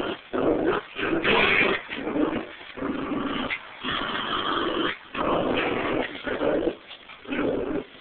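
A Pomeranian and a terrier mix play-growling over a tug-of-war toy, in a string of short growls with brief pauses between them.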